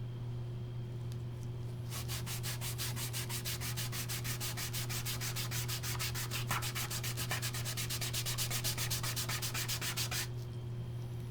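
Rapid back-and-forth rubbing on wood, about seven strokes a second, starting about two seconds in and stopping a little before the end: dye being rubbed onto a wood sample with an applicator. A steady low hum runs underneath.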